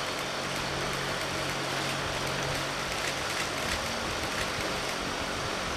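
Steady background noise with a low hum and a few faint clicks.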